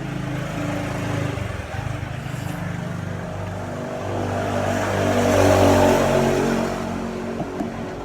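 A motor vehicle's engine going past on the road, its pitch changing in steps and growing loudest about five to six seconds in before fading.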